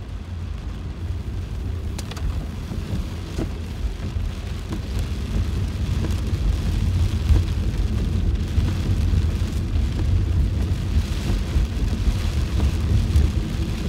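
Heavy rain falling on a car's roof and windshield, heard from inside the cabin, over a low rumble of the car and its tyres on the wet road that grows louder over the first few seconds as the car gets moving.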